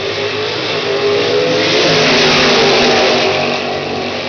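Two drag racing cars accelerating at full throttle down the strip side by side. The engine noise swells to its loudest about two seconds in, then fades as the cars pull away.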